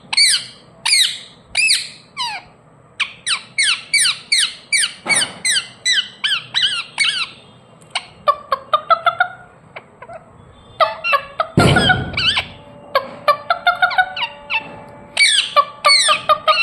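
Ringneck parrot making a long run of short, sharp squawking chirps, each falling in pitch, about two to three a second with a few short gaps. A brief noisy rush comes about halfway through.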